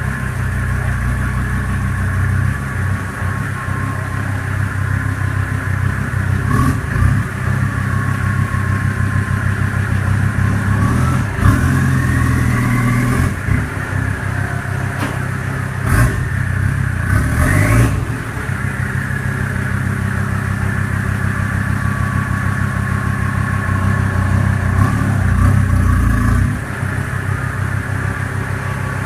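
Turbocharged Mercedes OM617 inline five-cylinder diesel idling and being revved a few times. A turbo whistle rises in pitch with each rev and falls back as the engine returns to idle.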